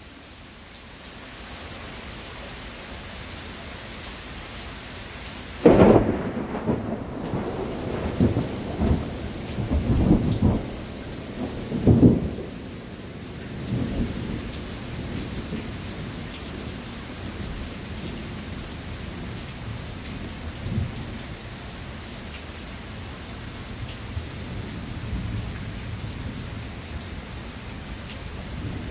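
Steady rain falling, with a thunderclap breaking in about six seconds in and rumbling on in rolling peaks for several seconds. Fainter rolls of thunder follow later.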